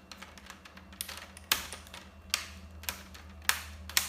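Irregular light clicks and taps of plastic and metal laptop parts being handled as a replacement laptop screen panel is fitted in place, with a few sharper clicks among them.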